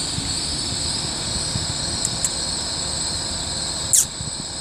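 Great Western Railway Class 800 bi-mode train running past as it pulls into the station: steady wheel and running noise with a steady high whine. Two faint clicks come about two seconds in, and a short sharp squeal about four seconds in.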